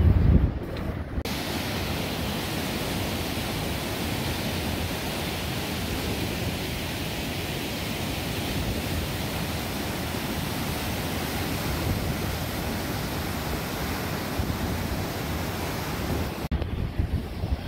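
Niagara River rapids rushing toward the brink of the Horseshoe Falls: a steady, even rush of white water that starts about a second in and cuts off shortly before the end. Gusty wind buffets the microphone at the start and again near the end.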